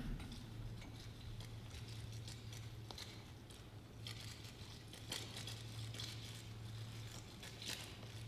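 Quiet room tone: a steady low hum with scattered faint rustles and small clicks.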